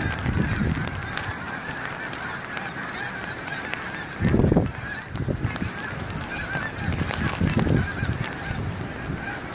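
A large flock of geese honking continuously overhead, many calls overlapping. Gusts of wind buffet the phone's microphone with low rumbles, the loudest about halfway through.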